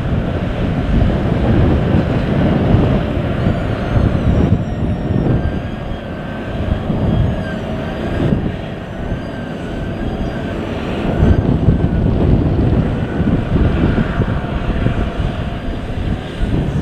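DB class 294 (V90) diesel-hydraulic shunting locomotive running slowly as it hauls a string of wagons, a heavy low rumble buffeted by wind on the microphone.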